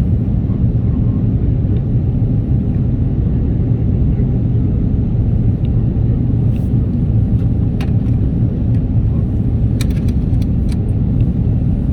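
Steady low rumble of a jet airliner's engines and airflow heard from inside the passenger cabin, with a few light clicks in the second half.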